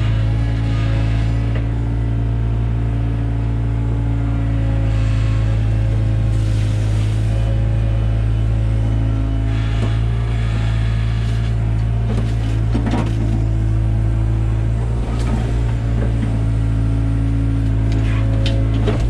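Takeuchi TB175 mini excavator's diesel engine running steadily at working speed, with a few short clanks in the second half.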